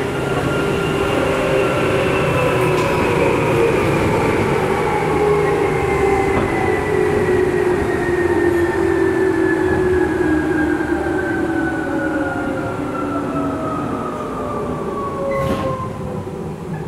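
Tokyu 8500 series electric train heard from inside the car: its traction motors and gears whine over the running rumble, the whine falling steadily in pitch as the train slows.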